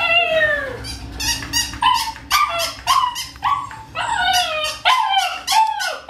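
Siberian husky puppy yipping excitedly at a plush toy dog: a rapid series of short, high calls, each falling in pitch, about two a second.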